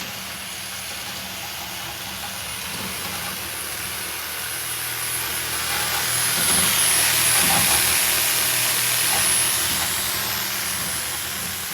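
Power saw cutting into the metal door of an ATM: a steady, loud grinding hiss with a high whine, growing louder for a few seconds past the middle and then easing.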